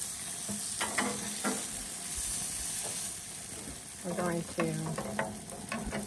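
Chicken drumsticks sizzling on the grates of a gas grill: a steady hiss, with a few short pitched sounds about a second in and again around four to five seconds in.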